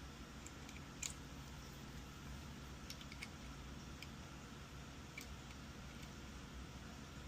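Faint, sharp clicks of multimeter probes touching solder joints while diodes on a furnace control board are tested. A handful of clicks, about a second in, around three seconds and near five seconds, over a low steady room hum.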